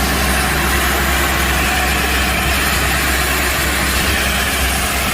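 Excavator-mounted core drill rig running steadily: the excavator's engine and hydraulics make a constant low hum with an even mechanical noise over it.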